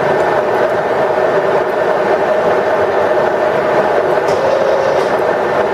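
Ryazan 1M63D screw-cutting lathe running under power, a steady loud mechanical whir from the spindle drive and gearbox with a constant pitched tone through it.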